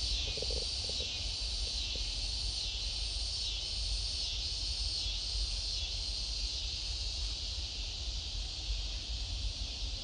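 Steady high-pitched chorus of insects, with a constant low rumble underneath.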